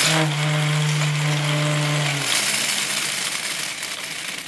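Homemade wooden gear train spinning fast as a clock mainspring unwinds with no fan governor to slow it: a loud whirring rattle of the gear teeth with a steady buzzing tone that drops away about two seconds in. The sound fades toward the end as the spring runs down.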